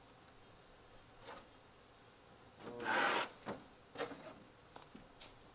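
A CRT television's cabinet scraping across the table top as it is turned around, one scrape about three seconds in, followed by a few light knocks.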